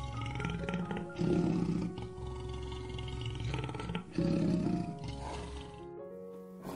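Lion roaring in low growls, two of them about three seconds apart, each under a second long, over background music with a melody. The growls stop about six seconds in and only the music goes on.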